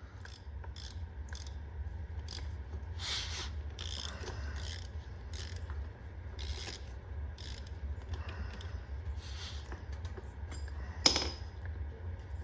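A 3/8-inch socket ratchet clicking in short strokes as the long bolt holding the motorcycle's oil filter is worked loose, with one sharper click about eleven seconds in.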